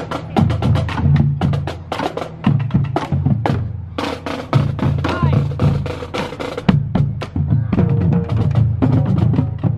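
Marching band drumline playing: rapid snare drum strokes over bass drum beats.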